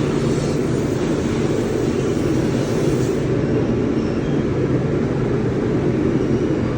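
Steady, loud low roar of steelworks ladle refining furnace plant, with a low hum running through it.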